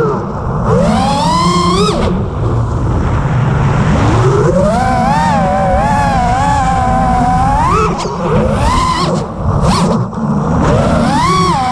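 6S FPV quadcopter's brushless motors whining, the pitch sweeping up and down again and again with the throttle, over a steady rush of wind.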